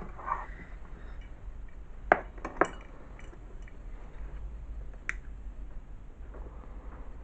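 A few sharp clicks of small hard objects, two close together about two seconds in and a third about five seconds in, over a steady low hum.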